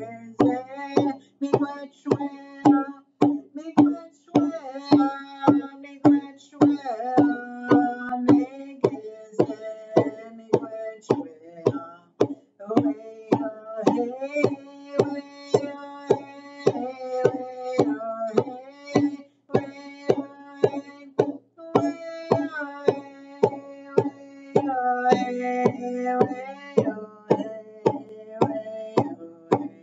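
A drum beaten at a steady, even beat of about two strokes a second, with a voice singing long, gliding notes over it.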